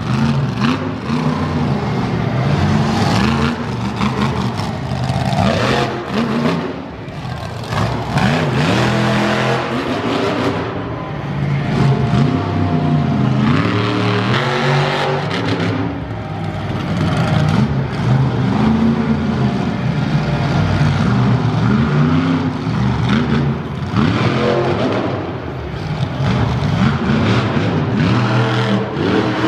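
Monster truck engine revving hard over and over, its pitch climbing and dropping as the throttle is opened and let off, with a couple of brief lulls.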